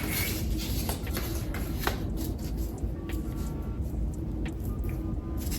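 A few light clicks and taps from handling small foam board pieces, over a steady low hum.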